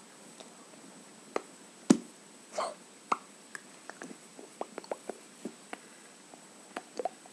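A string of short wet clicks and pops from the lips and mouth as faces are pulled, irregularly spaced, with one louder thump about two seconds in and a brief puff of breath just after. A faint steady high whine runs underneath.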